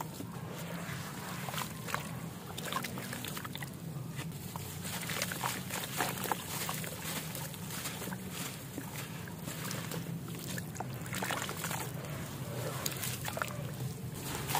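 Fine dry sand dust squeezed, crumbled and let fall by hand into a plastic tub: a steady soft hiss of falling grains with many small crackles, over a low steady hum.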